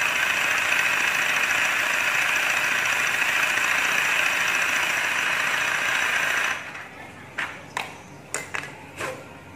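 Small homemade DC-motor air compressor running steadily, with a faint high whine, as it pumps air into a balloon. It cuts off abruptly about two-thirds of the way through. A few short, sharp sounds follow as the balloon is handled.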